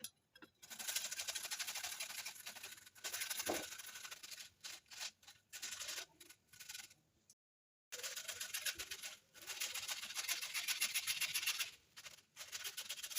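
Pahadi cucumber being grated on a metal grater: quick scraping strokes in runs of a second or more, broken by short pauses.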